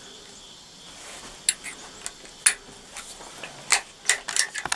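Sharp clicks and knocks from a scoped bolt-action rifle being handled, about ten of them. They start a second and a half in and come faster near the end.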